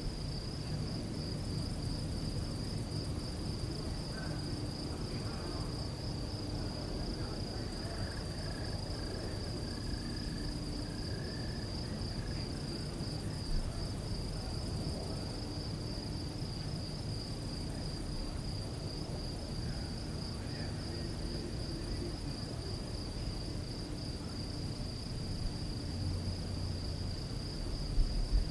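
Crickets chirping in a steady, rapidly pulsing high trill that never lets up, over a low background rumble.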